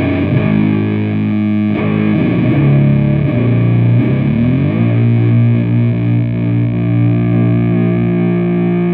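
Distorted, boosted electric guitar with humbuckers, played through a Matamp GT120 valve amp and 4x12 cabinet with Eminence speakers in a heavy stoner/doom tone. A few low chords are struck, and from about halfway the last one is left ringing with long sustain.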